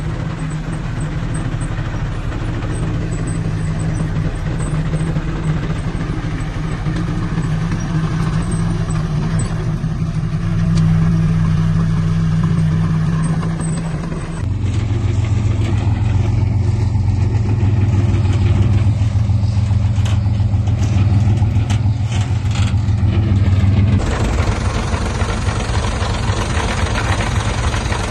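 Heavy diesel engines of earthmoving machines running steadily, changing abruptly twice as one machine's sound gives way to another's, with a few knocks in the middle section.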